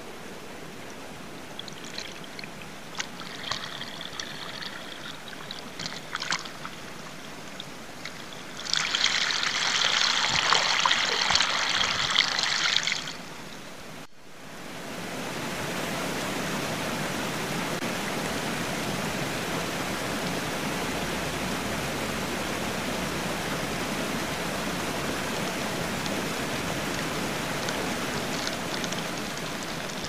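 Waterfall plunging into its rock pool, heard from right in the spray. First come scattered crackling splashes, then a loud burst of splashing for about four seconds. After a cut about halfway through, there is a steady rush of falling water.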